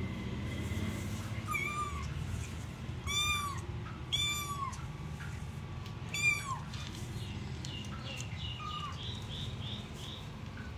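Cats mewing: about five high-pitched mews, each rising then falling in pitch, the loudest a little past six seconds in.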